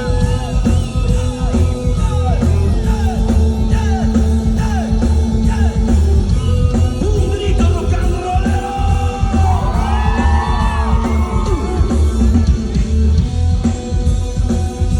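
Rock band playing live, recorded loud from the audience: heavy drums and bass with gliding melodic lines over them, and voices singing and yelling.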